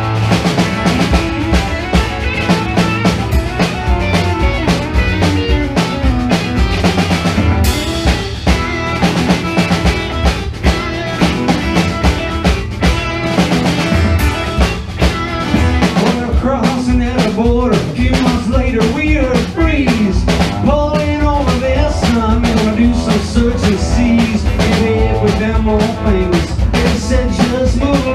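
Live country-rock band playing an instrumental break: electric guitar, strummed acoustic guitar and a drum kit keeping a steady beat, with melodic lines bending in pitch in the second half.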